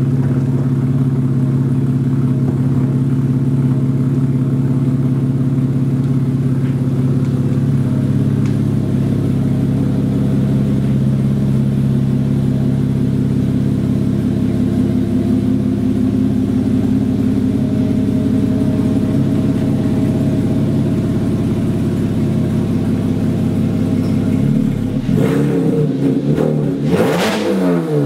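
Straight-piped Porsche Cayman S flat-six, its exhaust cut off from the collector back, running steadily and loud. Near the end the engine pitch swings sharply up and down.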